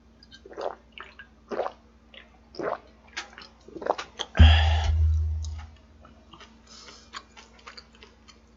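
A man gulping a canned drink, four swallows about a second apart, then a loud burp about halfway through that fades over a second or so. Faint chewing and chopstick clicks follow.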